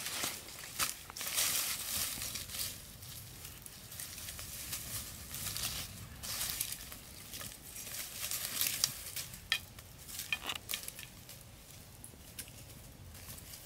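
A small fire of dry twigs and leaves crackling, with dry leaves and sticks rustling and snapping as it is fed by hand. The crackles come irregularly and are busiest near the start and again a little past the middle.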